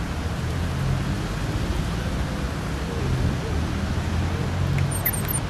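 Steady splashing wash of a park fountain's small water jets falling into the basin, with a low rumble underneath.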